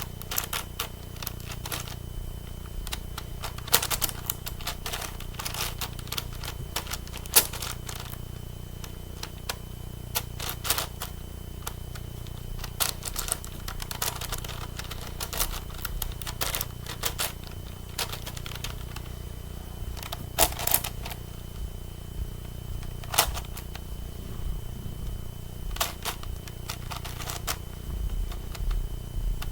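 Irregular clicking and clacking of a 9x9 Rubik's cube's plastic layers being turned by hand, in quick clusters with short pauses, over a steady low hum.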